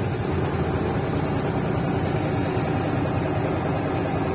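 Shacman tractor truck's diesel engine idling steadily, heard from inside the cab.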